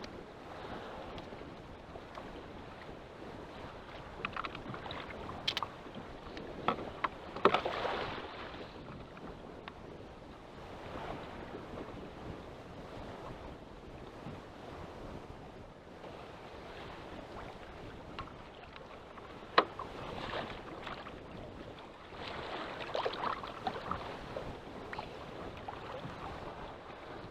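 Wind and choppy waves washing against a fishing kayak, with scattered sharp knocks and splashes, the loudest two about seven and twenty seconds in.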